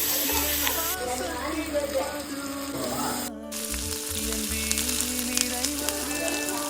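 Food sizzling and crackling as it fries in hot oil, with background music playing over it. The sound drops out for a moment about three seconds in, then the sizzling resumes.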